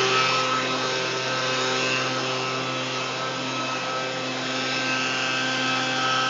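Leaf blower engine running steadily: a constant engine note over a rush of air.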